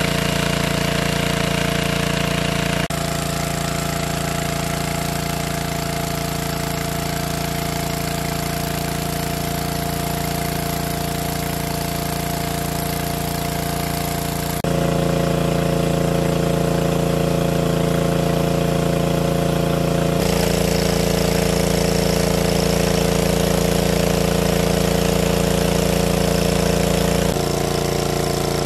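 Small petrol-engine water pump running steadily at a constant speed, with the rush of its discharge water jet. The engine's steady tone shifts abruptly a few times but keeps going throughout.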